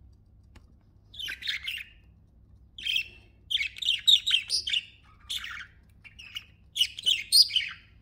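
Pet budgerigars chirping and chattering in a string of short, quick bursts, starting about a second in.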